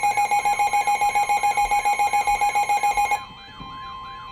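Weather radio alert alarm: a loud electronic beep pulsing rapidly, about eight times a second, that cuts off about three seconds in, leaving a fainter warbling tone.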